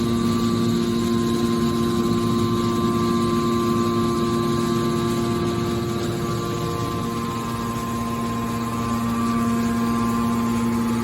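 Hydraulic scrap metal baler's power unit running with a steady hum, holding an even pitch, dipping slightly in level a little past the middle.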